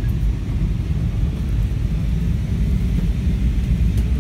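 Jet airliner cabin noise heard from a passenger seat on descent: a steady low rumble of the engines and the airflow.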